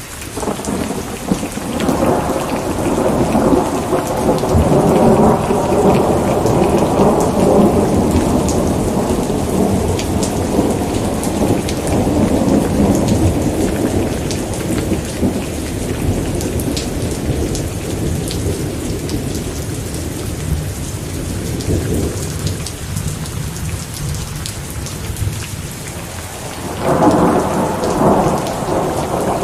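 Steady rain falling, with a long roll of thunder that swells just after the start, rumbles on for about twenty seconds and fades, and a second roll of thunder breaking near the end.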